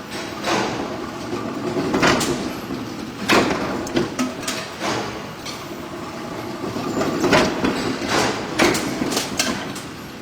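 Metal-on-metal clanks and hammer blows from forging heavy bolts: about eight strikes, spaced unevenly, each with a short ring, over a steady machinery hum.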